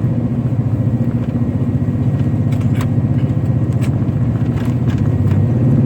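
Steady low drone of a car's engine and tyres, heard from inside the moving car, with a few faint clicks around the middle.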